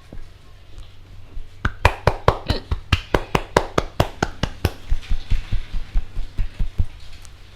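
A barber's hands slapping and tapping rapidly on a client's head in an Indian head massage, about five sharp smacks a second. After about three seconds they soften into lighter, duller pats that stop shortly before the end.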